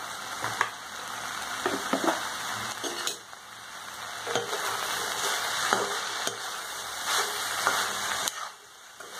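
Steel spatula stirring and scraping chopped cluster beans and potatoes around a kadai, with irregular scrapes and clanks against the pan over a soft sizzle. The stirring stops about a second before the end.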